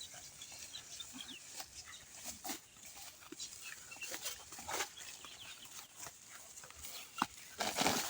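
Chickens clucking among scattered clicks and snaps, with a louder burst of rustling noise near the end.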